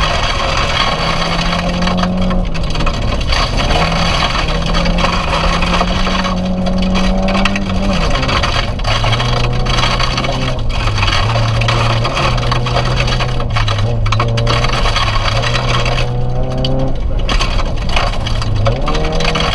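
Rally car at speed on a gravel stage, heard from inside the cabin: the engine pulls hard, its note rising and dropping several times, over a constant clatter of gravel and stones against the underbody.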